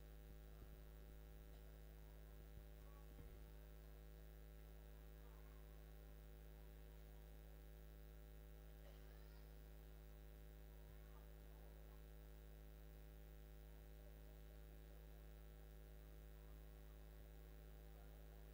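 Near silence with a steady electrical mains hum from the sound system.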